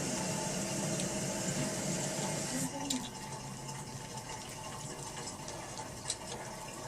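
Wet, soapy slime squishing and sloshing as it is worked by hand, fading to a quieter hiss with a few small clicks about two and a half seconds in.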